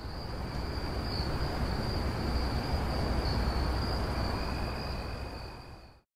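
Night ambience: a steady high-pitched insect trill over a low rumbling noise, swelling slightly and then fading out near the end.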